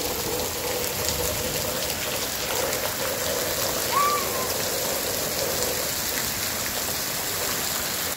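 Heavy rain falling steadily, an even dense hiss. There is a short squeak about four seconds in.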